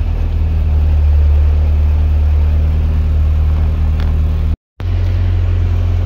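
Engine idling steadily, heard from inside the cab, with a low even hum. The sound cuts out completely for a moment about four and a half seconds in, then the same idle carries on.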